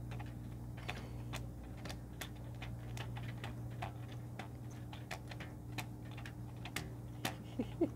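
Strings stretched across a camping chair like a home-made instrument, being plucked and snapped by hand: irregular light clicks, a few a second, over a steady low hum.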